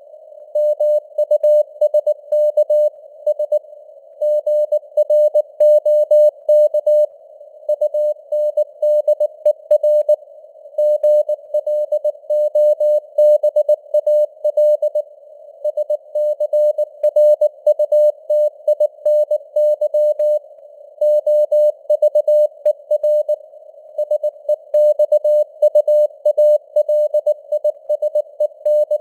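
Morse code at 19 words per minute: a single mid-pitched tone keyed on and off in dots and dashes, with a faint hiss of simulated radio noise between the characters.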